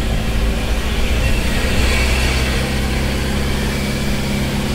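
Vehicle engine running at a steady speed with a low hum, mixed with road and wind noise, heard from inside the moving vehicle.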